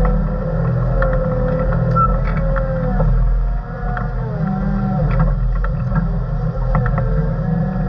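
Heavy earthmoving machine's diesel engine running steadily under load, heard from inside the cab, with a whine that wavers in pitch and scattered clicks and rattles.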